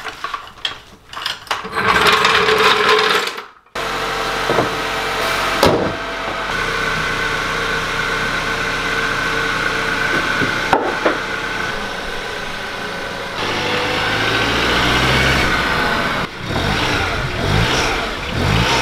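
A long steel bar clanking and rattling under the car's front end, then a car's engine running steadily, broken by a few sharp clicks.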